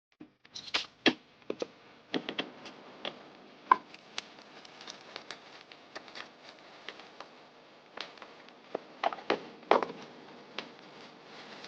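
Irregular small clicks, taps and knocks of hard objects set down and handled on a work surface, a few louder with a short ring, typical of tools and a phone being handled during repair.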